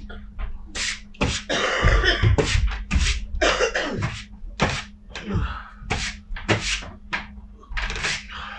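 Straw broom swept hard across a stage floor in quick swishing strokes, about two a second.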